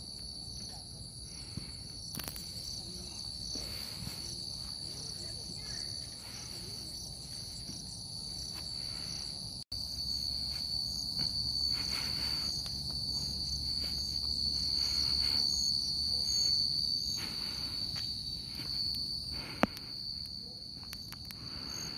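Steady, high-pitched chorus of insects chirring in grassland, a little louder from about ten seconds in, with a low rumble beneath.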